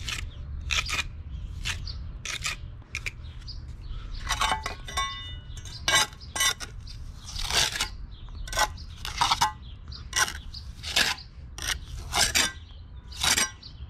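A steel trowel blade scraping and smoothing wet quick-setting cement into a patch on a concrete step edge, in short strokes about one or two a second, with scattered metallic clinks and a brief ring about five seconds in.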